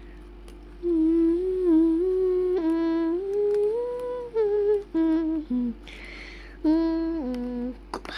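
A voice humming a slow tune, starting about a second in: held notes that slide from one pitch to the next, with a few short breaks between phrases.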